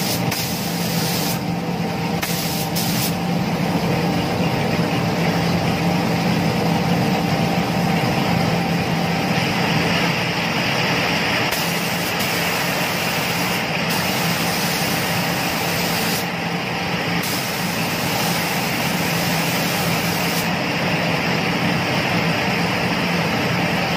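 Compressed-air paint spray gun hissing as a coat is sprayed onto a plastic motorcycle panel, the hiss stopping for a moment several times as the trigger is let off between passes. A steady machine hum runs underneath.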